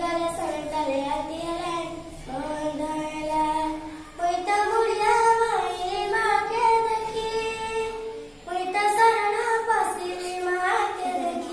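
A young girl singing solo and unaccompanied, in long held phrases with short breaks for breath between them.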